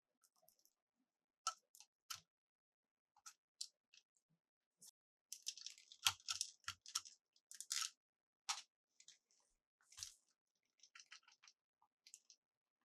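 Handling of plastic toy pieces and packaging: scattered light clicks and taps, with a denser bout of crinkling and crackling about halfway through.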